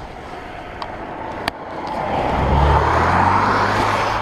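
A motor vehicle's engine running, growing louder about two seconds in, with a couple of faint clicks before it.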